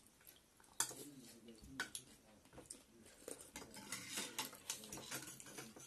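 Spoons and forks clinking and scraping against ceramic bowls of noodle soup as it is eaten: a string of light clicks, the sharpest a little under a second in.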